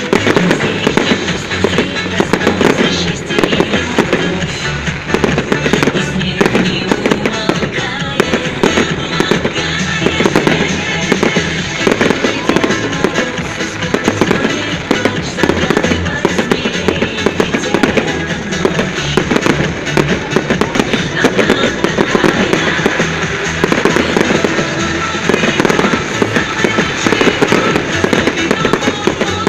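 Fireworks display: a dense, continuous run of bangs and crackles from bursting shells, with music playing alongside.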